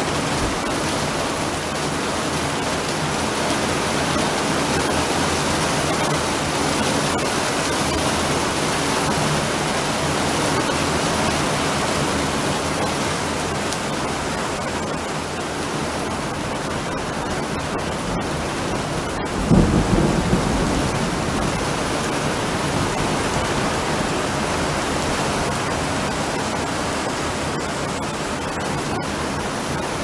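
Heavy rain falling steadily, with one short, loud thunderclap and rumble a little under two-thirds of the way through.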